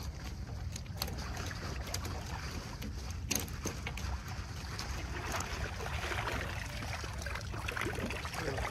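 Water splashing and sloshing as a cast net is hauled up out of shallow pond water, with water streaming off the mesh as it is lifted, heaviest near the end. A steady low rumble runs underneath.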